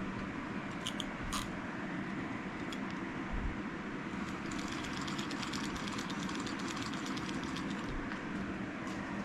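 Small clicks of handling a Zebco 33 spincast reel, then about four seconds of rapid fine ticking as the reel is worked, over a steady low background hum.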